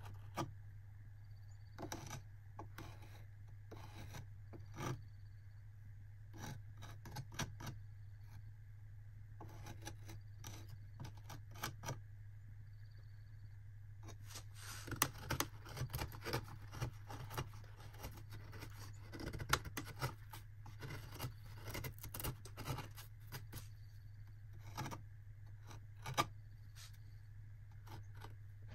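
Carving knife slicing small chips from Alaskan cottonwood bark: scattered short cuts, then a dense run of quick strokes from about halfway through. A steady low hum runs underneath.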